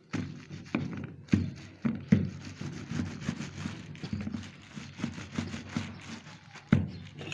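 Wooden rolling pin rolled back and forth over a polythene sheet on a slab of jaggery-sesame mixture, a repeated low rubbing with a few sharp knocks.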